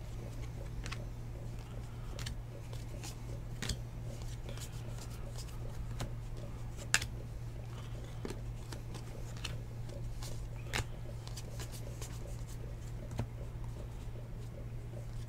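Football trading cards being flipped and slid one by one off a hand-held stack, giving scattered soft clicks and brief card-on-card slides at an irregular pace, over a steady low electrical hum.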